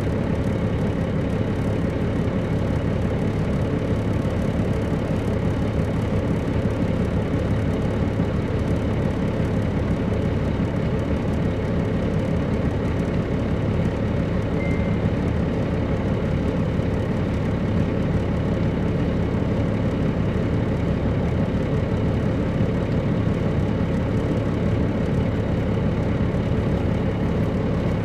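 Steady drone of a 2007 MCI D4500CL coach's Caterpillar C13 ACERT diesel, heard from aboard the bus. It holds an even pitch and loudness, with no gear changes or revving.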